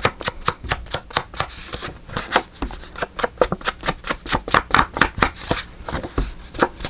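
Rapid, even tapping, about five taps a second, of an ink blending tool being dabbed onto paper to ink the edges of an envelope.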